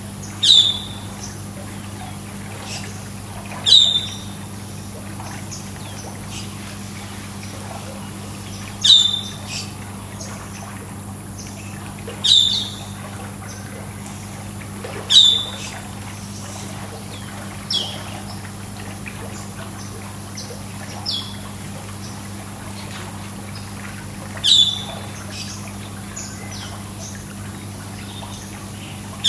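A bird giving a short, sharp call every few seconds, each a quick downward sweep, with fainter chirps between. Underneath runs a steady trickle of pool water and a low hum.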